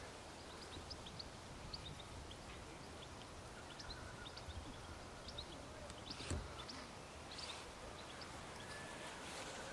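Quiet outdoor lakeside background with a steady low hum and small birds chirping briefly here and there. A single soft knock comes about six seconds in.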